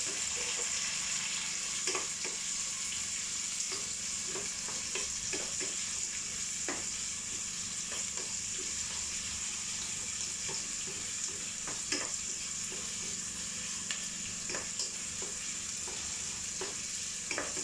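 Sliced onions and garlic sizzling steadily in hot oil in a metal pot, with scattered clicks and scrapes of a wooden spatula stirring them against the pan.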